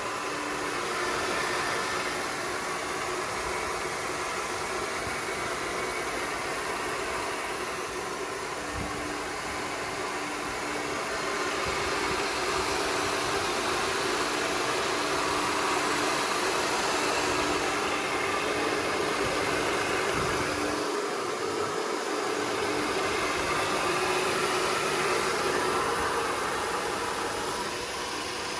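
Heavytech 6N40 mini rice mill with de-stoner and vibrating grader, driven by a 3 hp motor, running while milling rice: a steady, even whirring noise with a faint hum that drops out about three quarters of the way through.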